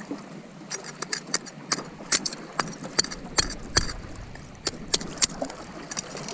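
Metal knife blade clicking and scraping against goose barnacle shells and concrete as the barnacles are pried out of a crevice in a breakwater block. It makes a string of sharp, irregular clicks that starts under a second in and thins out near the end.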